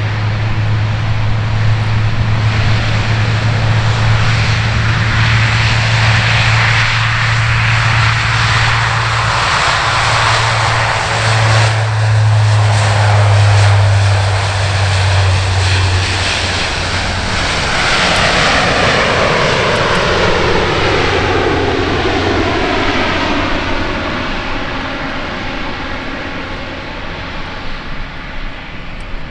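Four-engine turboprop of a C-130J-30 Super Hercules (Rolls-Royce AE 2100D3 engines, six-blade propellers) at takeoff power, with a steady low propeller hum, as it rolls down the runway, lifts off and climbs away. Loudest about halfway through as it passes, then fading, with falling sweeping tones in the last third.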